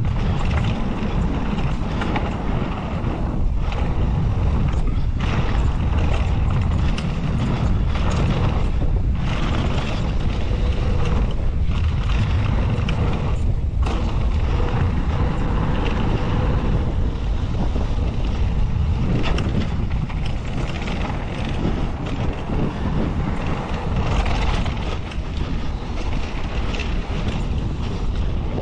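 Wind buffeting the action camera's microphone as a Pivot Phoenix 29 downhill mountain bike runs fast down a dirt trail, mixed with the steady rush of its tyres on the dirt. A continuous, loud, low rumble.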